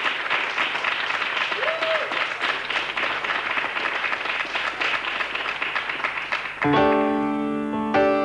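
Studio audience applauding steadily. About six and a half seconds in, a grand piano comes in with sustained chords and the clapping gives way to the music.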